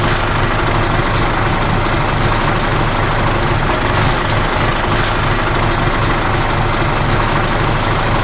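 Truck engine running steadily at idle, loud and unchanging with a low hum: an engine sound effect for the toy cement mixer truck.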